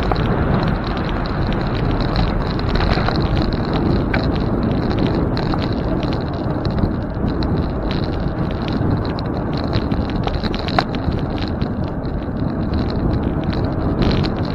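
Riding noise from a moving bicycle: wind on the microphone with tyre and road rumble, a steady rush with scattered small clicks and rattles.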